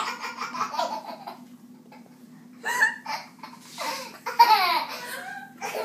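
An eight-month-old baby laughing in quick pulses that trail off over the first second, then two more short bursts of laughter about three and four seconds in.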